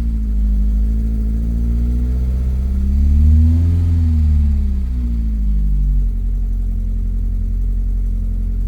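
Classic Mk1 Ford Escort four-cylinder engine running, revved gently in slow swells, then settling to a steady idle about six seconds in. It is being run up to temperature to test a newly fitted thermostat.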